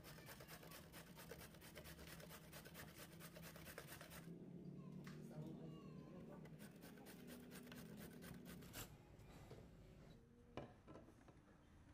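Carrot being grated on a stainless steel box grater: faint, rapid rasping strokes that thin out about four seconds in. A single sharp tap near the end.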